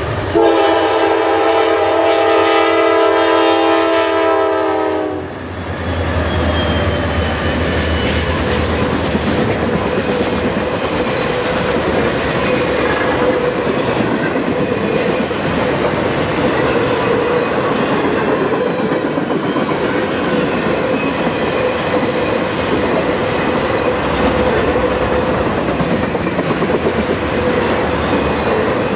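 Nathan K5LA five-chime horn on a Norfolk Southern GE D9-44CW sounding one long chord for about five seconds, its pitch dropping as the locomotive passes. The lead locomotives' engines rumble by. Then an intermodal train of trailers on flatcars rolls past steadily with clickety-clack from the wheels and a held ringing note.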